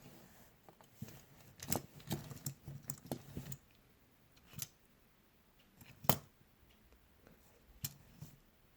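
Light clicks and taps from handling a small die-cast alloy toy dump truck: a quick run of small clicks in the first few seconds, then a few single clicks spaced a second or two apart.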